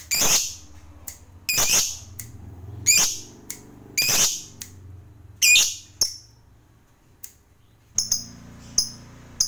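Masked lovebird giving loud, shrill calls about once a second. After a brief lull, a run of shorter, sharper chirps comes near the end.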